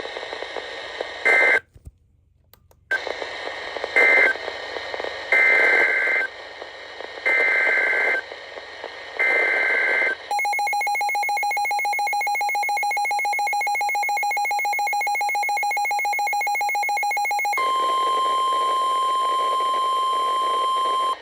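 NOAA Weather Radio Emergency Alert System signal. Short screeching digital data bursts repeat about every one to two seconds, then a pulsing two-tone attention signal plays for about seven seconds, then a steady single-pitch warning alarm tone. Together they mark the start of a new warning broadcast.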